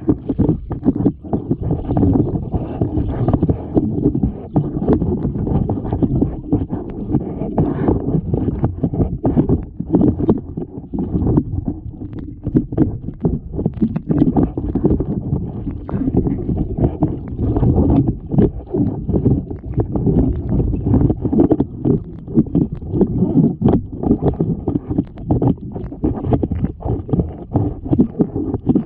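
Water sloshing and splashing close to the microphone, with irregular knocks, as of someone wading through cold lake water.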